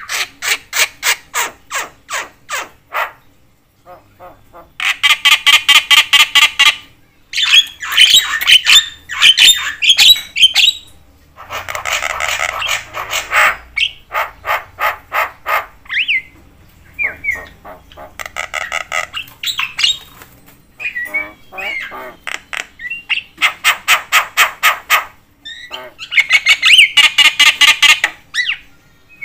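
Javan myna calling loudly and incessantly: bursts a few seconds long of rapidly repeated harsh, chattering notes, mixed with a few short whistles.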